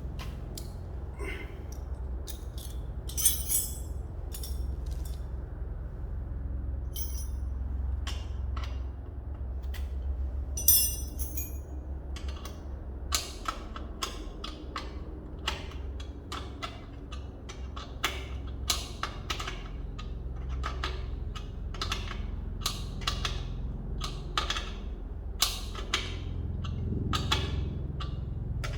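Irregular clicks and knocks of hard objects being handled, coming more often after about twelve seconds, over a steady low hum.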